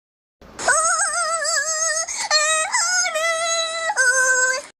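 High-pitched, synthetic-sounding cartoon singing voice: a wavering note with heavy vibrato, then two steadier held notes, starting suddenly and cutting off abruptly near the end.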